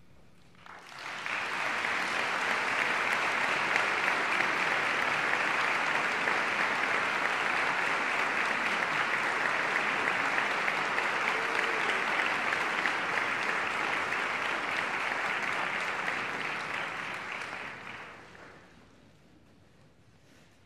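Audience applauding. It swells up quickly about a second in, holds steady, then dies away a couple of seconds before the end.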